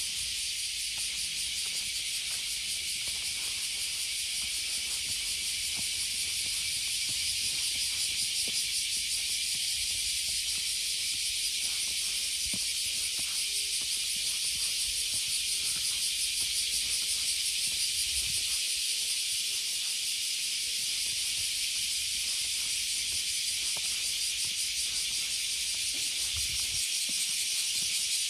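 A chorus of summer cicadas: a steady, high-pitched buzz with a fast pulse.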